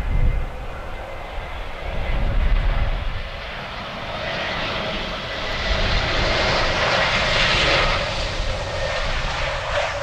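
Airbus A320neo airliner on final approach, its turbofan engines' whine and rushing noise growing louder as it closes in, with steady high tones running through it. It is loudest about seven to eight seconds in.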